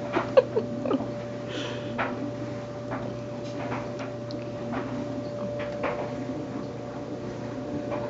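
LG direct-drive top-load washer running a wash cycle: a steady motor hum with a faint whine, broken by irregular swishes and knocks as the load moves in the drum, with a few sharp clicks about half a second in.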